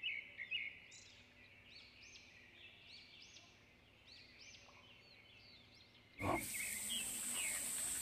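Faint birdsong: a bird repeating short, arching high notes about once every half second to second. About six seconds in, this gives way abruptly to a louder, steady high-pitched outdoor hiss.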